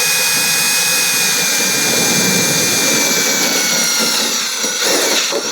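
Electric drill running a small pilot bit through the ambulance's fender panel, a steady high motor whine that sags slowly in pitch during the last couple of seconds and stops at the end as the bit finishes the hole.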